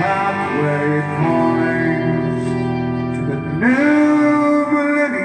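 Rock band playing live: electric guitar chords under a male singer holding long sung notes, with a new held note sliding up into place a little over halfway through.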